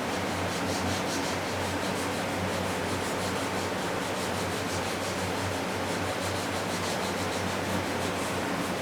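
Hand wet-sanding: 320-grit sandpaper wrapped on a paint-stick block rubbed in quick, steady back-and-forth strokes over sealer primer on a truck body panel, with hardly any pressure, to sand out runs in the sealer.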